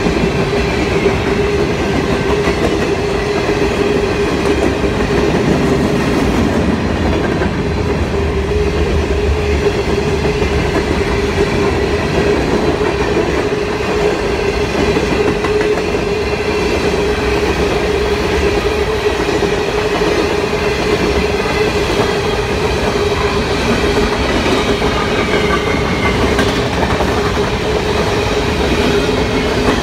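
Freight train of covered hopper cars rolling steadily past: continuous wheel-on-rail rumble with clickety-clack over the rail joints and a steady tone held throughout.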